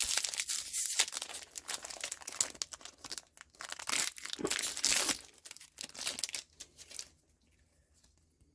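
Wrapper of a trading card booster pack crinkling and tearing as it is ripped open, a dense crackling that stops about seven seconds in.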